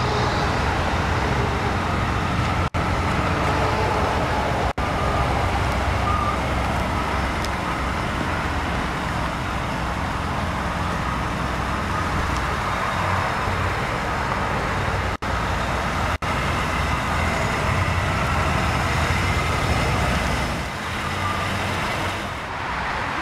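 1994 Cadillac Fleetwood Brougham's 5.7-litre V8 idling steadily, heard from outside the car, with a steady hiss over a low rumble. A few momentary dropouts cut the sound, and it dips slightly in level near the end.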